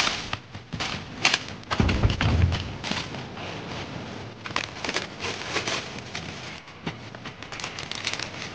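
Irregular clicks, taps and knocks of small things being handled, with a dull thump about two seconds in.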